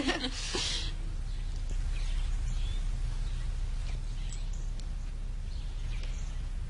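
Steady low background hum with a few faint, short high-pitched chirps scattered through it.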